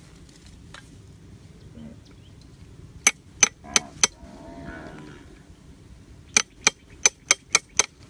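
Hatchet blade chopping into a PVC pipe: a run of four sharp, ringing strikes and then a run of six, about three a second.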